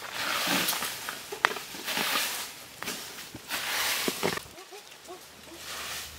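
Hands scraping and brushing dry leaves and sand in several short bursts, then a puppy giving a string of short, high whimpers over the last second and a half.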